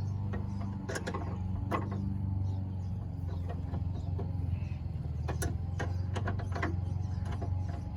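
Irregular metallic clicks and taps of hand tools, a wrench or pliers, working on the nuts of a truck's starter solenoid, over a steady low hum.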